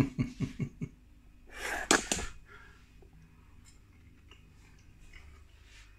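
A man eating a mouthful of pie: a quick run of short murmured vocal sounds in the first second, one loud, sharp breath about two seconds in, then faint chewing.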